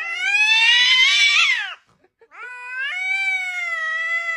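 A cat giving two long, drawn-out meows, the second starting about two seconds in.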